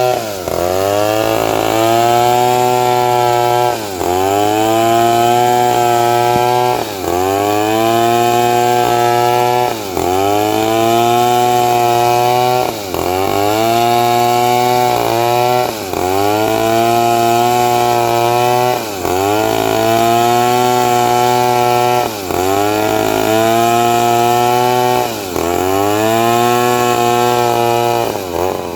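Chainsaw running hard while cutting through a large teak log. Its pitch drops sharply and climbs back about every three seconds as the engine bogs under the cut and recovers.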